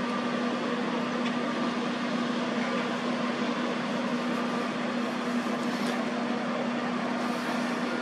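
Heavy machinery running at a steady speed: a constant drone with an even hum.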